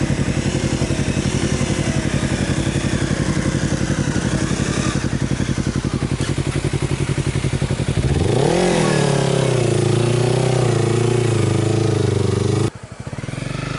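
Motorcycle engine running at low revs with a steady pulsing beat. About eight seconds in it revs up and holds a higher, steady note as the bike pulls away across soft sand. The sound cuts off suddenly near the end.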